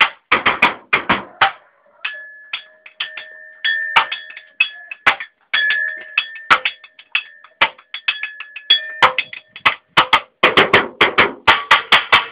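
Improvised drum kit made of cans being played: fast rhythmic strikes, with a steady ringing tone lingering between hits from about two seconds in.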